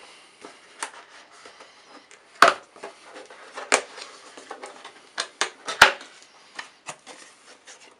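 A cardboard CPU-cooler box being opened and handled: rustling and scraping, with several sharp knocks and taps as the box and its contents are moved.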